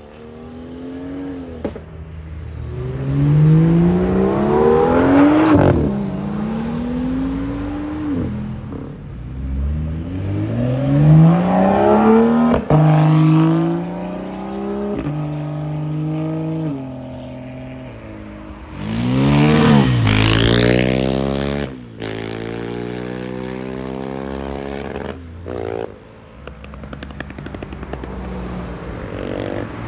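Several sports cars accelerating hard one after another, BMWs among them. Each engine revs up and drops back at every upshift. The highest, loudest pull comes about two-thirds of the way through and cuts off sharply, and a steadier engine note follows.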